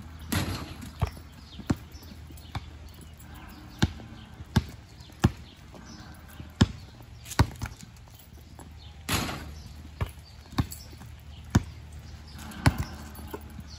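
A basketball bouncing on pavement again and again, a dozen or so separate hard bounces at uneven spacing. Twice, about half a second in and about nine seconds in, a longer ringing hit as a shot strikes the hoop of a portable basketball stand.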